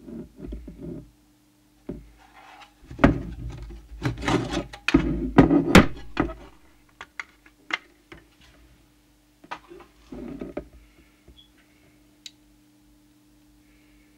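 Metal CB radio chassis and its black cover panel being handled on a workbench: knocks, scrapes and rubbing as the cover comes off, busiest and loudest from about three to six seconds in, then a few scattered clicks and taps.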